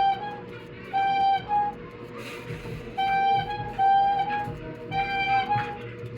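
Background music: a simple, repeating high melody played in short phrases.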